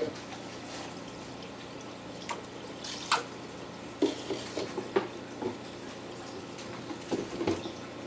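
Aquarium water dripping and splashing in irregular spurts, over a steady low hum.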